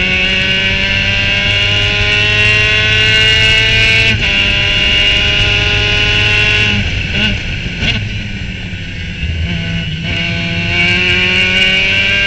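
Onboard sound of a Formula Mazda race car's rotary engine at full throttle, rising in pitch through the gears with an upshift about four seconds in. Near the middle the driver lifts and brakes for a corner, with short blips on the downshifts. About ten seconds in the engine is back on full throttle, climbing again.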